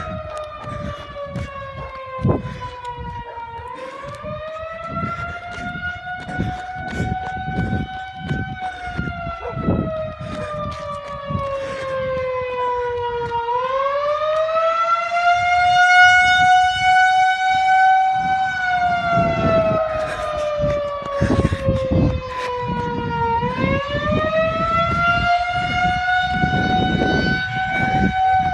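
Outdoor warning siren sounding a fire alarm in a slow wail: its pitch climbs for about five seconds and sinks for about five, again and again. Low rumbling noise and irregular thumps run underneath.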